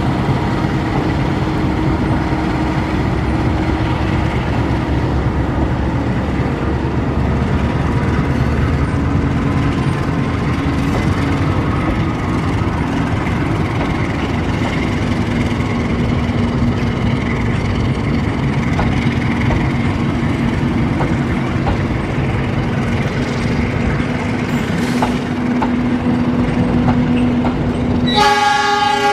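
Diesel-hauled passenger train rolling past close by, its wheels rumbling steadily on the rails. Near the end a train horn blasts loudly.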